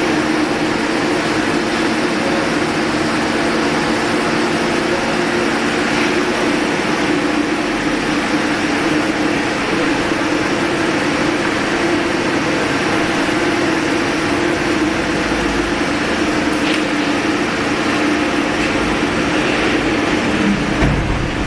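Machinery running steadily, a constant loud hum with a droning tone that does not change.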